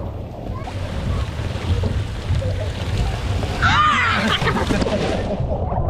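Steady rushing noise with a low rumble, and one high-pitched squeal about four seconds in.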